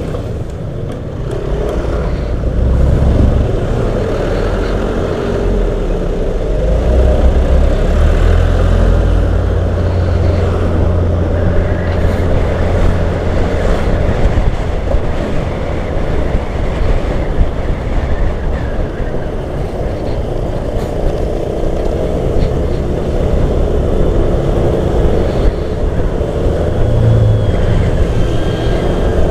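Wind rushing over the microphone with a motorcycle engine running underneath while riding on the road. The bike being ridden is a two-stroke Kawasaki Ninja RR Super KIPS. The noise grows louder a couple of seconds in and then stays steady.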